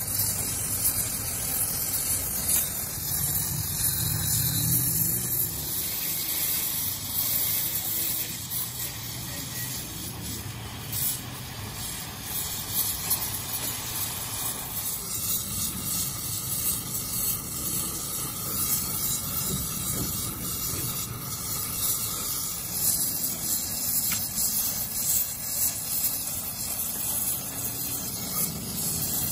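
Gas welding torch flame hissing steadily against a steel gear.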